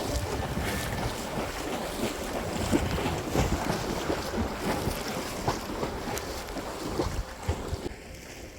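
Seawater splashing and sloshing in irregular bursts, with wind buffeting the microphone; it turns quieter shortly before the end.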